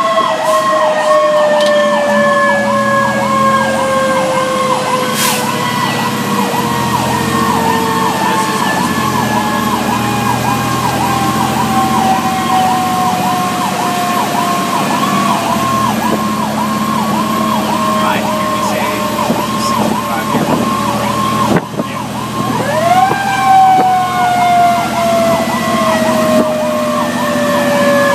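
Fire engine sirens heard from inside the cab: an electronic siren cycling in a rapid yelp, with a mechanical siren coasting slowly down in pitch. About 23 seconds in, the mechanical siren is wound up again with a quick rising wail and then winds slowly down. The truck's engine drones underneath.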